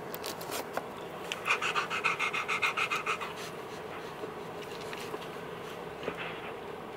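Rottweiler panting quickly in a run of short breaths for about two seconds, then quieter.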